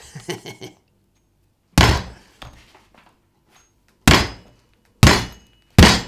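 Tomahawk blade striking the hard cement-and-bandage shell cast around a watermelon: four sharp thunks, the last three coming closer together.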